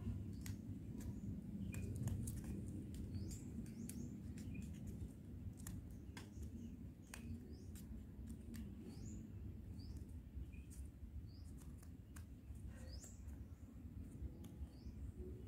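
Paper being folded and creased by hand, with small crinkles and clicks, over a low steady background rumble. A bird chirps repeatedly in the background, short high chirps about once a second from a few seconds in.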